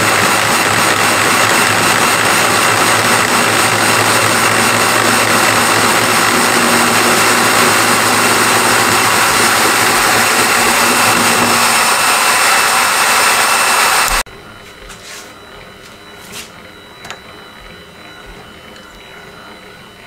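Powered cutter spindle running steadily while milling a tooth into a gear blank on the lathe, a loud dense machine noise with a steady hum and high tones. It stops abruptly about 14 seconds in, leaving quiet room sound with a few light clicks.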